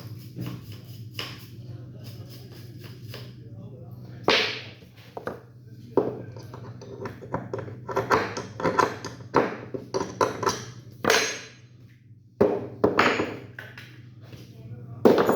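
Sharp metallic clicks and knocks of Glock 17 pistol parts being handled during disassembly for cleaning, irregular and coming in clusters, over a steady low hum.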